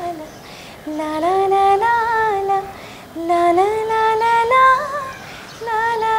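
A woman singing unaccompanied: slow, held notes with slides between pitches, in three phrases with short breaths between them.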